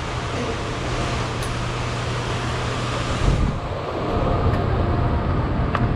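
Steady rushing air with a low hum from the building's ventilation at the entrance doorway. About three seconds in, after a low thump, this gives way to quieter open-air ambience with a few faint ticks.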